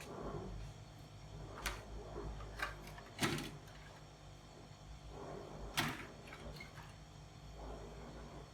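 A few scattered sharp clicks and knocks, the two loudest about three and six seconds in, over a low steady hum.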